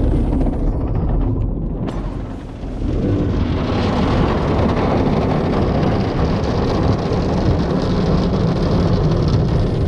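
Autec EV1 automatic car wash working over a vehicle, heard from inside the cabin: a loud, steady rumble of water and wash brushes on the body and windows. A brighter hiss of spray sets in about three seconds in.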